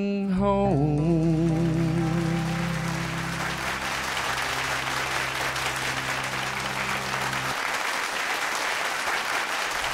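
The end of a gospel song: the singer holds the last note with vibrato over a sustained accompaniment chord. Applause swells underneath, and the chord stops about seven and a half seconds in while the clapping goes on.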